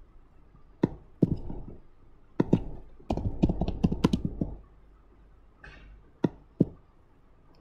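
Computer keyboard keystrokes and mouse clicks. There are a few separate clicks, then a quick run of typing about three seconds in, then two more single clicks near the end.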